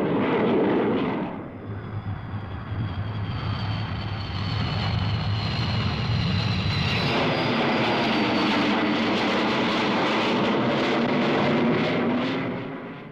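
Jet aircraft engine noise: a steady rush with a high whine that slowly falls in pitch, swelling again about halfway and fading near the end.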